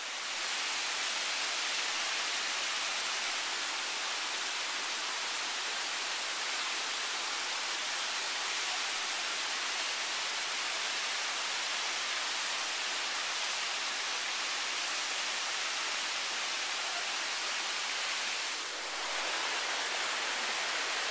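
Steady, even hiss of rushing water from a creek and its small weir, with a brief dip in level about nineteen seconds in.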